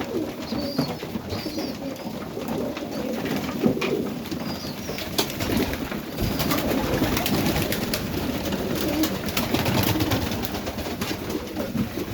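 A loft full of Serbian highflyer pigeons cooing, many birds at once and overlapping, with short high chirps in the first few seconds and scattered sharp clicks throughout.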